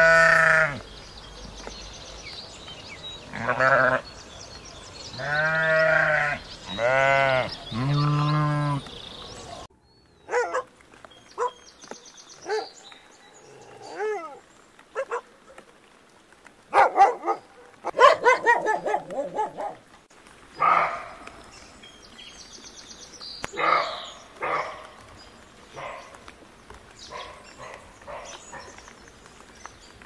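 Sheep bleating: about five long, wavering bleats in the first nine seconds. After that, a dog barks and yelps in short, scattered calls.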